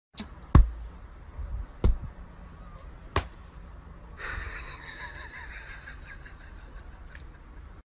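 Three sharp taps about a second and a quarter apart over quiet room tone, then a faint hiss from about four seconds in.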